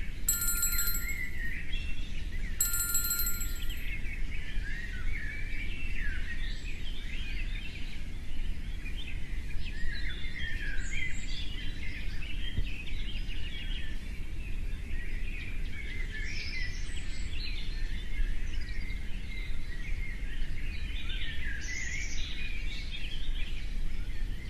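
Many birds chirping and singing continuously over a steady low rumble. A bright bell-like chime rings twice in the first few seconds.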